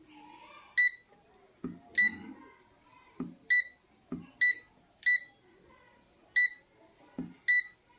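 Sunshine DT-19N digital multimeter beeping: seven short, high beeps at uneven intervals, most with a sharp click just before.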